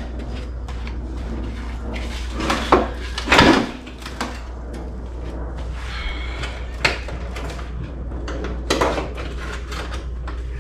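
A few metal clunks and knocks from a VW Bay Window bus's engine shifting against the body on a floor jack as it is worked loose for removal, the loudest about three seconds in, over a steady low hum.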